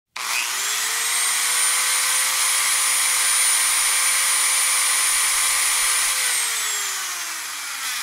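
Electric engraver (Dremel-type power tool) switched on: its motor whine climbs in pitch for about two seconds, runs steady over a buzzing hiss, then drops in pitch from about six seconds in as the tool is switched off and winds down.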